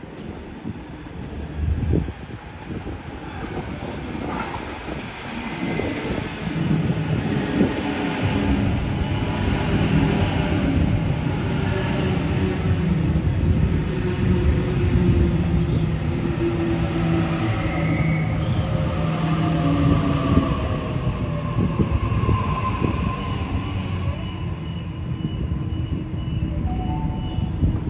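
Electric Sydney Trains suburban train approaching and passing close by. It builds up over the first several seconds into a loud, steady rumble of wheels on rails, with a motor whine and higher squealing tones that slide in pitch as the carriages go past.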